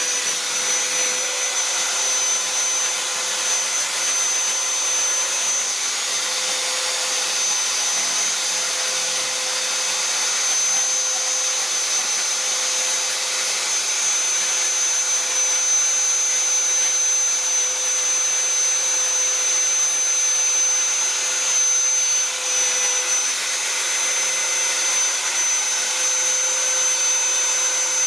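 Handheld rotary die grinder with a pointed burr bit running and grinding into wood: a steady high-pitched motor whine whose pitch dips slightly now and then as the burr bites into the wood.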